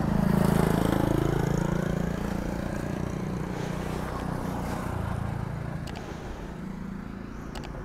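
A motor vehicle driving past. Its engine note falls in pitch as it goes by, loudest about half a second in, then fades over the next few seconds.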